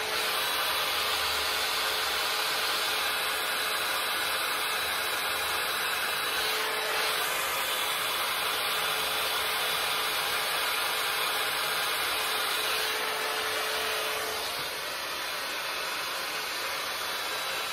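Babyliss electric hot air styling brush blowing steadily while it styles a section of hair. A faint hum under the rush of air stops about three-quarters of the way through, and the sound is a little quieter after that.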